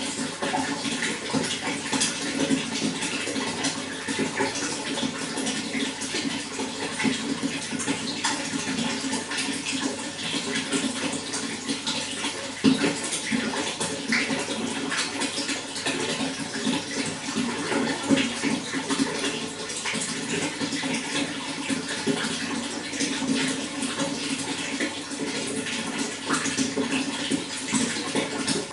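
Running water flowing steadily, with many small splashes and one louder splash about twelve seconds in.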